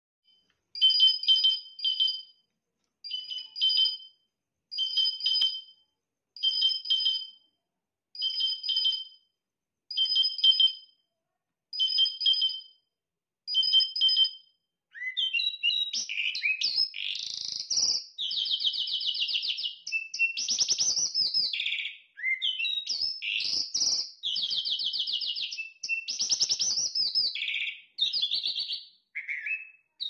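Caged jal songbird calling: for about half the time a short two-toned note repeated at even intervals, about every second and a half, then a long, continuous, varied warbling song full of trills.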